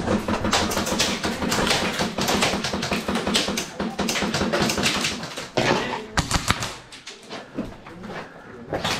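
Airsoft guns firing in rapid, continuous bursts, a dense clatter of shots that thins out about five and a half seconds in, with a few louder cracks around six seconds and scattered clicks after.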